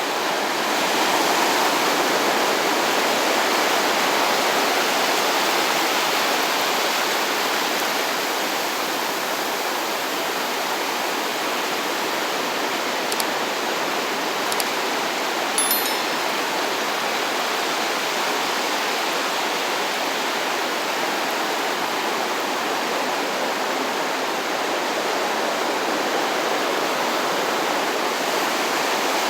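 Small waves from a calm sea breaking and washing up on a beach shore: a steady rushing surf that swells a little in the first few seconds. A few faint clicks come about halfway through.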